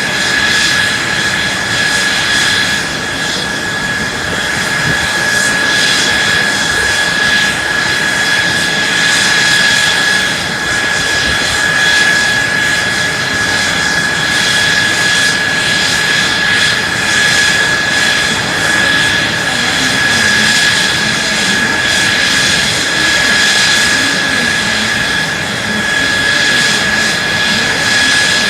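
Mitsubishi F-2 fighter's F110 turbofan engine running steadily on a ground run: a loud jet rush with a steady high-pitched whine on top.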